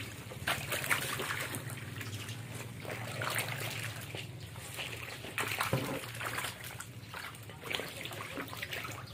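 Water spraying and trickling into a shallow tank crowded with frogs, with irregular small splashes.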